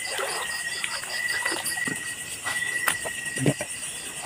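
Insects chirping: a rapidly pulsing trill over a steady high buzz, with a few faint knocks.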